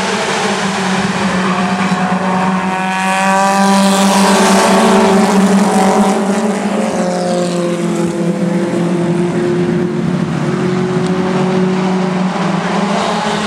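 Mini stock race cars' four-cylinder engines running hard as the pack laps the oval. The sound swells as cars pass about four seconds in, their engine notes falling in pitch as they go by, over a steady drone from the rest of the field.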